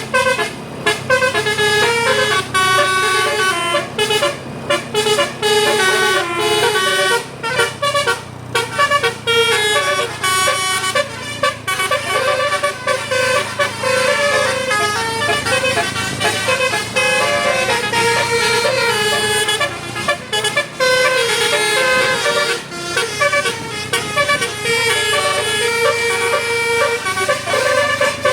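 Tour bus's Basuri 'telolet' musical air horn playing a tune: a quick run of short horn notes changing pitch one after another, with brief breaks between phrases.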